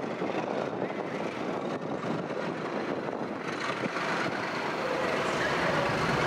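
English Electric V12 diesel engines of a pair of Class 37 locomotives running as they draw slowly into the station: a steady, heavy engine note that grows a little louder from about four seconds in.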